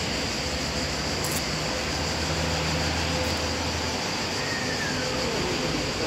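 Steady street traffic noise, with the low hum of a passing vehicle's engine stronger from about two to four seconds in.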